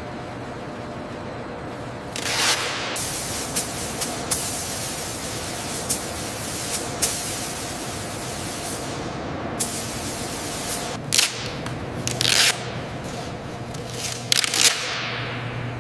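Hissing spray that starts about two seconds in and comes in several louder bursts, with a few sharp clicks, over a steady machine hum.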